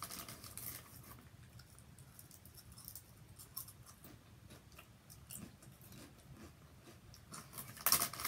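A foil chip bag crinkles as a hand goes into it, then a thin barbecue potato chip crunches softly as it is chewed. The bag crinkles loudly again near the end.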